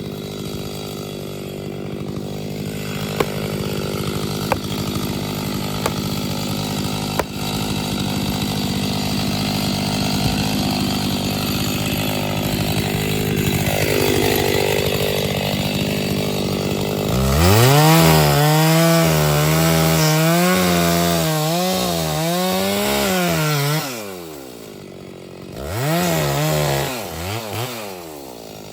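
Two-stroke chainsaw cutting into a large pine trunk, running steadily under load at first. From about two-thirds of the way in, its engine pitch swings up and down repeatedly as the throttle is worked in the cut. It eases off briefly near the end, then revs again.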